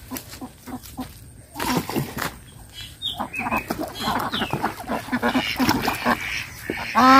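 A flock of domestic ducks quacking, many short overlapping calls, busier and louder from about a second and a half in.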